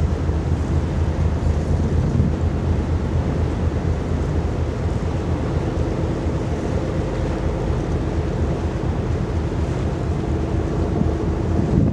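Wind buffeting the microphone over a steady low rumble. A faint steady hum comes in about five seconds in.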